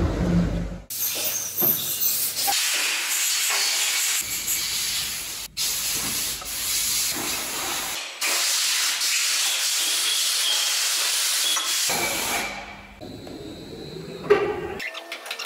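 Loud steady hissing that starts about a second in and stops abruptly several times, as if cut together from separate takes, then ends near the end, where a few sharp clicks follow.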